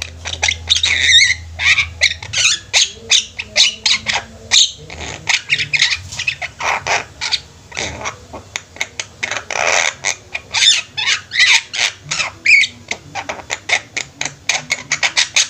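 Several Javan mynas kept together in one cage calling busily: a dense run of short, harsh squawks and whistled notes, several a second, overlapping one another.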